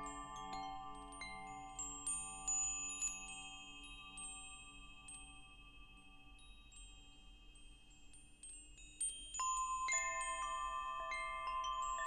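Wind chimes tinkling: scattered strikes of several pitches that ring on and slowly fade, thinning out through the middle, then a fresh cluster of strikes near the end.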